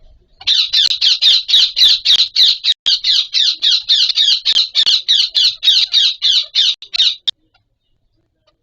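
Indian ringneck parakeet calling in a rapid, even run of high-pitched calls, about four a second. There is a brief break near three seconds in, and the calling stops suddenly a little after seven seconds.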